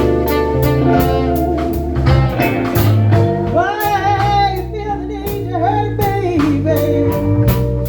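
Music: a song with a singing voice over bass and drums keeping a steady beat; the voice comes in about halfway through.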